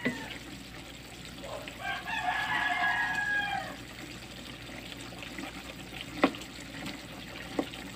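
A rooster crowing once, one long call of about two seconds starting a second and a half in. Later come two sharp knocks of the stirring spatula against the pan, the first the loudest sound here.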